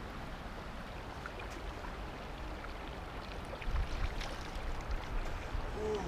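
River water flowing over and around rocks, a steady rushing hiss, with low wind rumble on the microphone from about three and a half seconds in.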